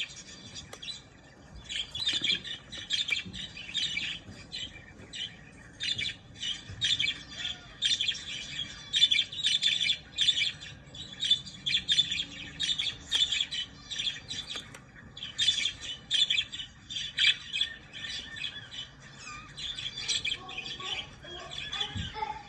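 Budgerigar chattering: runs of rapid chirps and squawks with brief pauses between them.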